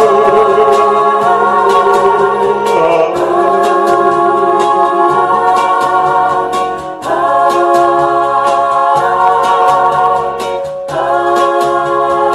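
Live singing over a pop-ballad backing track: long held sung notes with vibrato and backing vocals over a steady beat, with brief breaks between phrases.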